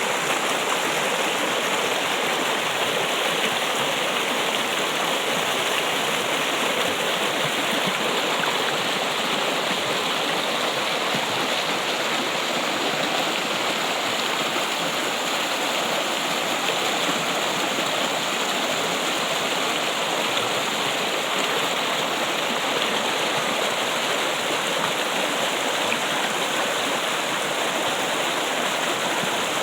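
Steady trickling and running water, like a small stream.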